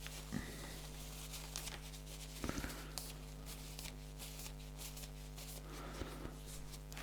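Faint handling noises: scattered small clicks and brief rustles of a cable and plug parts being worked by hand, over a steady electrical hum.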